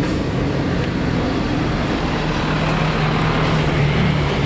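Steady rumble of vehicles and traffic, with a low engine drone that grows stronger over the last couple of seconds.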